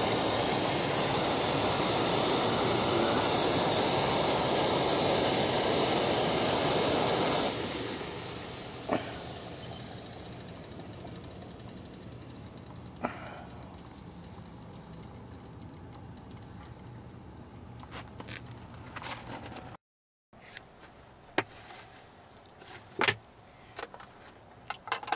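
Coleman liquid-gasoline camp stove burning with a steady hiss under a kettle, then dying out abruptly about seven seconds in after its lever is turned off. Scattered light knocks and clicks from handling follow.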